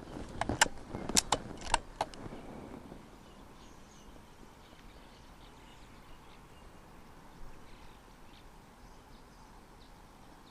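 A quick series of sharp clicks and knocks in the first two seconds, then a quiet outdoor background with faint, scattered high chirps.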